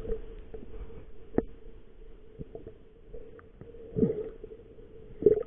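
Muffled underwater sound picked up by a submerged camera: a low rumble of moving water with three sharp knocks, the loudest just before the end.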